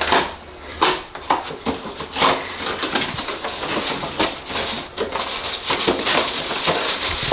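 Rustling and crinkling as new engine air filters are brought out and handled: a string of short taps and rustles, turning to a denser, steady crinkling from about five seconds in.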